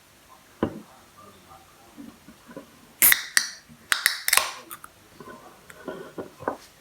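A few sharp clicks and knocks in a small room: one a little over half a second in, then a quick cluster of louder ones around the middle, and lighter taps after.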